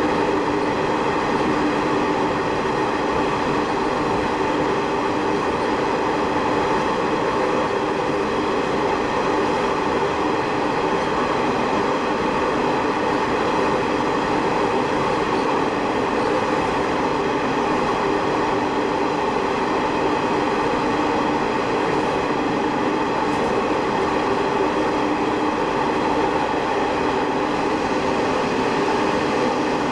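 Sanriku Railway diesel railcar running steadily, its engine and wheels on the rails heard from inside the car.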